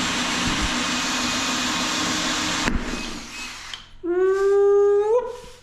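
Drill with a hole saw running steadily against porcelain tile, cutting off suddenly about halfway through. About a second later comes a short, high whining tone with overtones that rises in pitch at its end.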